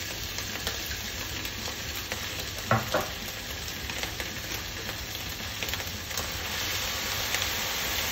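Diced vegetables sizzling steadily in a hot wok. Two short knocks come about three seconds in, and the sizzle grows a little louder near the end.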